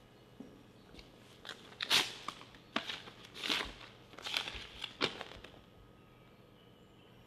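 A paper envelope crinkling and tearing as it is opened, in about five short rips over roughly three seconds.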